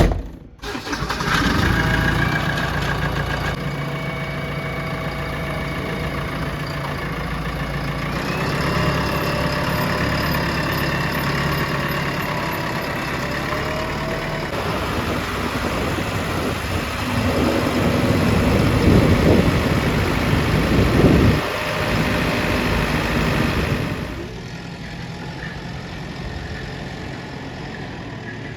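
JCB 3DX backhoe loader's diesel engine running under work. A whine rises in pitch about a third of the way in, louder rough noise comes around two-thirds of the way through, and the engine drops to a quieter, steadier run near the end.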